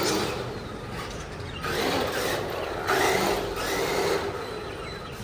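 Battery-powered RC car's electric motor and gears whining, rising and falling in pitch through several throttle bursts, with tyres scrubbing on the floor.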